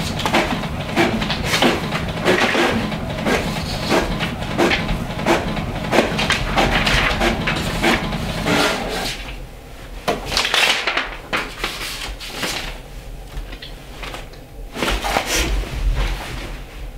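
Paper rustling and crinkling as the pages of a composition notebook are handled and turned, a rapid run of crackles that thins out about nine seconds in.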